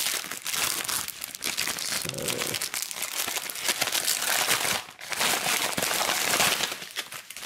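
Plastic mailing satchel crinkling and rustling as hands pull it open and rummage inside, dense crackling with a short lull about five seconds in.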